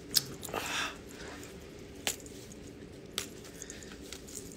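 Small objects being handled: a sharp click, then a brief rustle, then two more clicks about two and three seconds in, over a steady low room hum.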